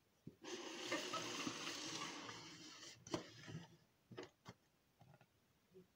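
A cardboard box being picked up and handled: a scraping rustle for about three seconds, then a handful of light taps and clicks.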